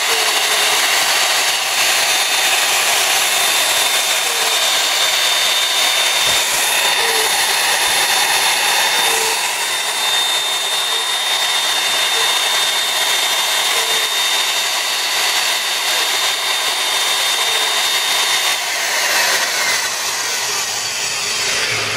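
Hougen HMD 925 magnetic drill press motor running at full speed with a steady high whine while the power feed lowers the spindle, with faint light ticks every second or two. Near the end the whine falls away as the machine shuts off automatically at the bottom of the feed stroke and spins down.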